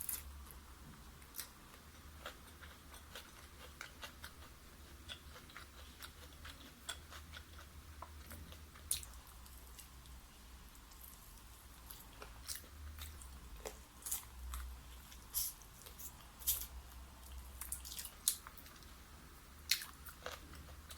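Close-up chewing and biting of crunchy fried chicken: irregular crisp crunches of the batter, a few louder bites scattered through.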